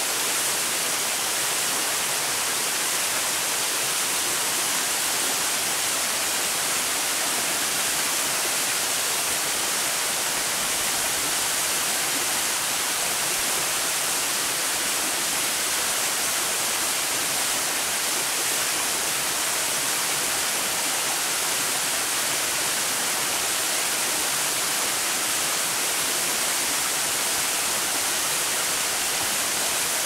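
Tall waterfall falling down a cliff face and spilling over rock: a steady, unchanging rush of falling water with a bright hiss.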